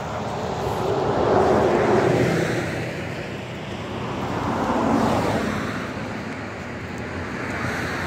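Cars driving past on the road, one after another, each swelling and fading; the loudest passes come about two seconds in and again about five seconds in.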